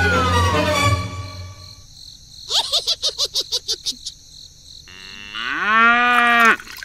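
Dubbed sound effects: a descending whistle slide over a low hum at the start, a quick run of short chirps around the middle, then a cow mooing for about a second and a half near the end.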